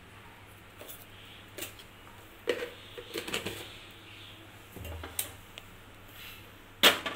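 A spoon clinking and scraping against a stainless-steel saucepan while sugar is stirred into the tea: a scattered series of light metallic knocks, with the loudest near the end.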